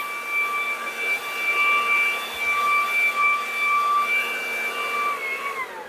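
Black+Decker BV3600 12-amp corded electric leaf blower running: a steady rush of air with a high motor whine. Near the end it is switched off and the whine falls in pitch as the motor spins down.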